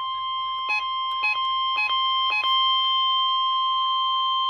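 NOAA Weather Radio warning alarm tone: a single steady 1050 Hz tone held without a break, played through a weather radio, announcing that a warning message follows. Four brief blips sound over it in the first two and a half seconds.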